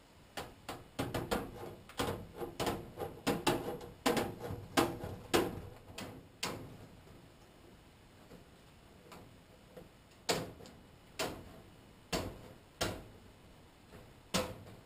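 Hand snips cutting through quarter-inch wire mesh (hardware cloth), each cut a sharp snap. A quick run of snips for the first six seconds or so, then a few single snips about a second apart near the end.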